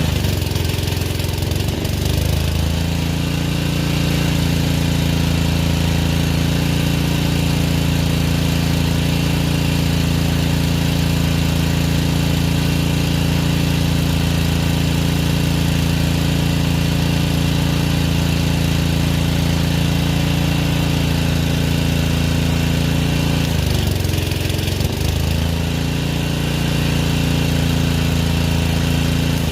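An engine running steadily. Its pitch sags briefly and recovers near the start and again about 24 seconds in, as if under a passing load.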